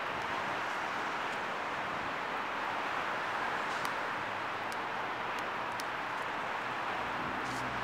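Steady outdoor hiss of distant traffic, with a few faint, short high ticks scattered through it.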